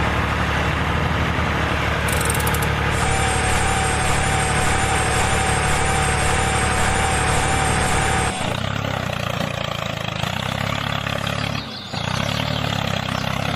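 Motor running steadily with a low, engine-like hum. It shifts to a different, lighter running sound about eight seconds in and drops out briefly near the end.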